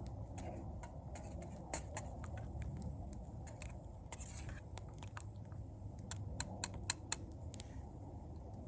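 Small twig fire crackling in a titanium folding stove: scattered sharp snaps and pops over a faint low rumble, with a quick run of pops toward the end.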